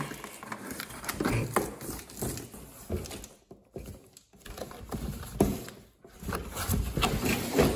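Irregular knocks, taps and rustling of something being handled, with a couple of brief quiet gaps.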